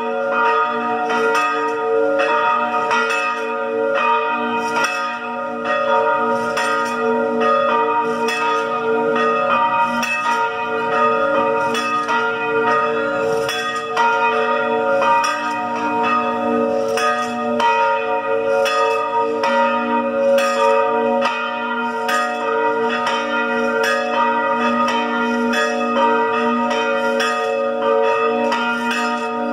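Church bells ringing in a continuous peal: strokes follow one another in quick succession, and the tones of several bells hang on and overlap.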